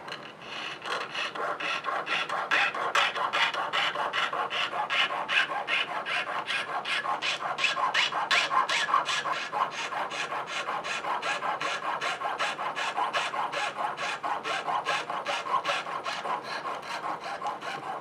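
Jeweler's saw cutting through a coil of 16-gauge copper wire: the fine blade rasps back and forth in steady, even strokes, about four a second.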